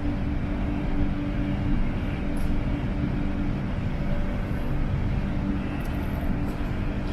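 Steady running noise of a driverless metro train heard from inside the carriage while it travels at speed: a continuous rumble with a low steady hum.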